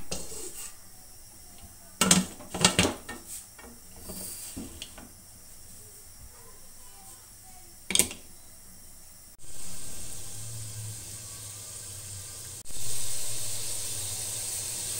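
Aluminium pressure cooker being closed: a few metal knocks of the lid, then a single clink as the pressure weight is set on. From about nine seconds in comes a steady hiss, which turns louder about three seconds later as onions sizzle in the open cooker.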